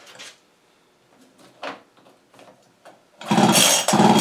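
A few light clicks, then, about three seconds in, a Husqvarna 55 chainsaw's recoil starter is pulled in quick repeated strokes, about one every 0.6 seconds, spinning the engine over without it firing. The test plug shows no spark from the ignition.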